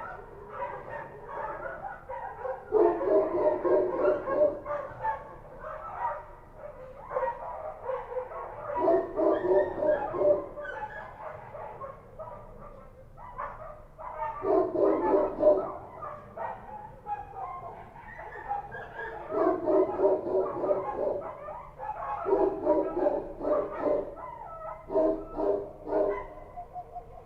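Street dogs barking in repeated bouts of quick barks, about six bouts with short pauses between them.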